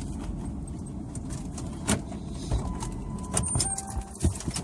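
Car cabin with the engine running low underneath, several sharp clicks and knocks in the second half, and a short steady electronic tone a little past halfway, like a car's warning chime.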